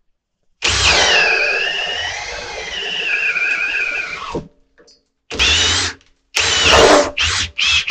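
RIDGID 18V Octane hammer drill running at top speed, boring a 1 1/4 inch spade bit into a 4x4 timber. Its motor whine drops in pitch as the bit loads up in the wood, runs about four seconds and stops, then comes back in several short trigger bursts.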